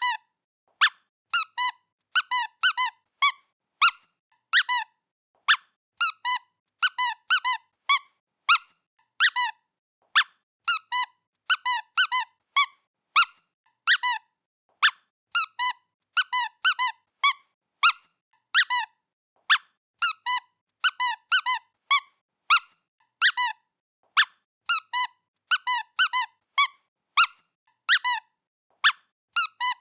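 Squeaky toy squeaked over and over as a cat plays with it: short pitched squeaks a couple of times a second, often in quick pairs.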